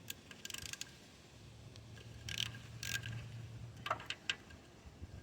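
Faint, scattered metallic clicks and scrapes of hand tools and sockets being handled at the engine, a few separate strikes with a faint low hum between.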